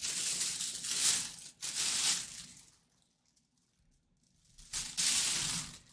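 Thin plastic bag crinkling and rustling as a football helmet inside it is handled, in two stretches with a pause of about two seconds between.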